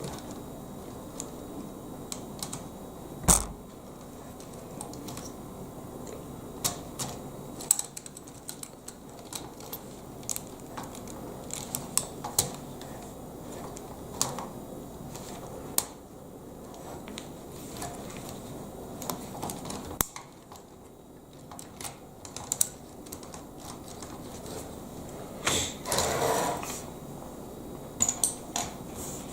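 Lego Technic plastic pieces clicking and tapping as they are handled and pressed together: scattered irregular clicks, one loud knock about three seconds in, and a short burst of rustling near the end.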